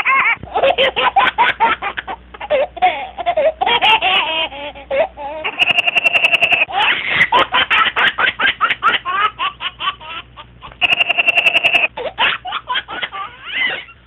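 A baby laughing in quick runs of giggles and belly laughs, with two longer held high squeals, one just past the middle and one near the end.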